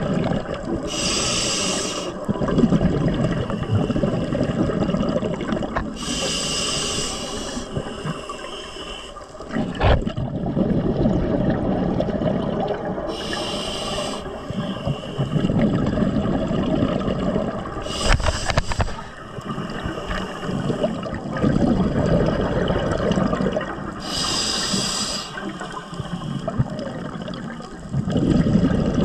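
Scuba diver breathing through a regulator underwater: five sharp hissing inhales, one every five to six seconds, each followed by the low bubbling rumble of exhaled air.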